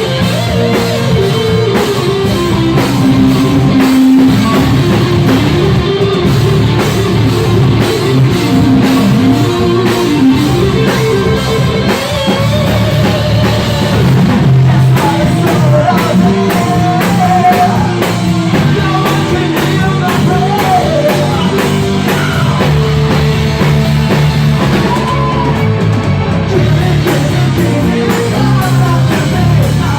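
Rock band playing live: drum kit and electric guitars, with a melody line moving over them.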